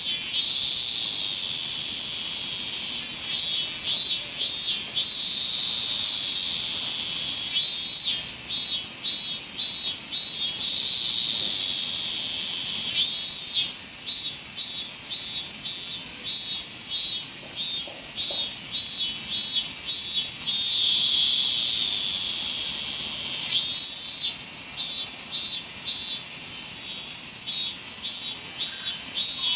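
Robust cicada (minmin-zemi) singing in repeated series of pulsed 'min-min-min' notes, about three or four a second, with short pauses between series. The longest series lasts several seconds. Under them runs a steady high-pitched insect hiss.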